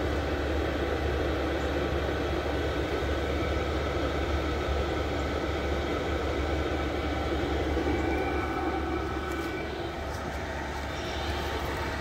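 8 kW diesel air heater running, its blower pushing a steady rush of air with a faint hum from the fan motor. One owner calls it really quiet, like just a bunch of air.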